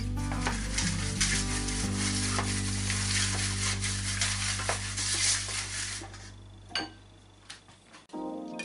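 Pastry brush swishing and scraping through oil in an aluminium pie pan: a steady scratchy brushing that stops about six seconds in, followed by a few light clicks.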